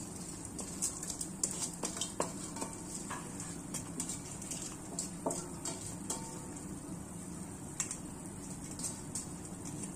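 Soaked rice being tipped and scraped by hand out of a steel bowl into a pot of boiling stock. Scattered clicks and knocks of the bowl against the pot sound over the steady hiss of the boil, thickest in the first few seconds.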